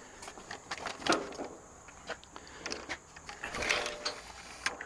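Scattered clicks and knocks of metal tools and parts being handled, with two brief rattly bursts, about a second in and again between three and four seconds in.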